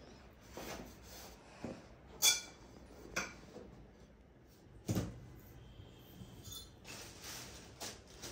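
Shoe rack parts being handled and fitted together during assembly: scattered light clicks and knocks, the loudest about two seconds in, another about three seconds in and a sharp knock about five seconds in.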